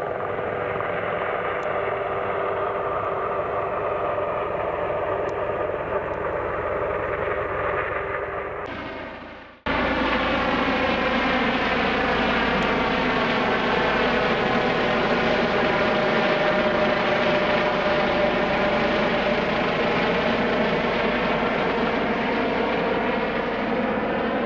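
Airbus H135 helicopter's twin turbine engines and main rotor running steadily with a layered whine. About ten seconds in it cuts abruptly to a louder stretch whose pitch slowly drifts.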